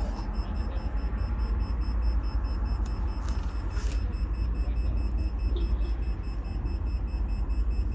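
Redbox DVD rental kiosk beeping: a rapid, evenly spaced, high-pitched beep repeating without pause, over a steady low rumble. Two brief hissing bursts come a little after three seconds and near four seconds.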